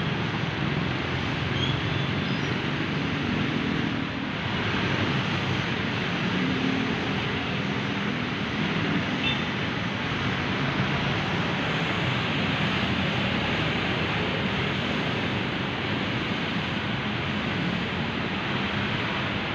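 Steady city street traffic: passing motor vehicles' engines over constant road noise.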